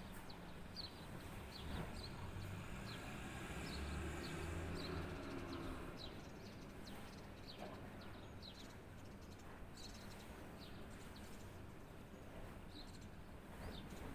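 Small birds chirping: short, high, falling chirps repeated every half second or so. A low hum swells and fades in the first half.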